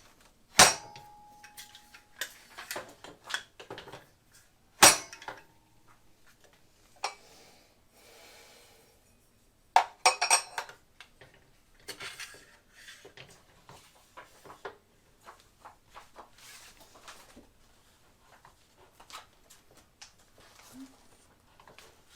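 Metal parts of a mitre saw stand clanking and clinking as they are handled and fitted together during assembly. Two loud metal knocks stand out, the first about half a second in ringing on briefly, with a burst of clatter about ten seconds in and lighter clicks throughout.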